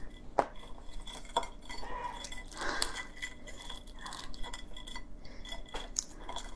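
Shell of a raw swimming crab being pried open and pulled apart by hand: scattered sharp cracks and clicks with some wet crackling.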